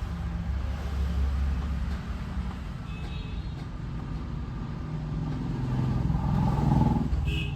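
Motor vehicle engine running with a steady low rumble that builds louder about five to seven seconds in, with a couple of short high-pitched tones.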